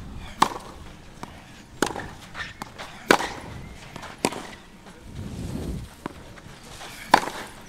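Tennis rally on a clay court: rackets strike the ball back and forth, five sharp hits, with a longer gap before the last one near the end.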